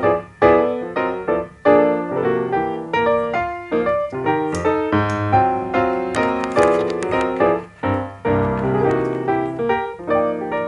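Background music: piano playing a run of many notes, each struck and fading.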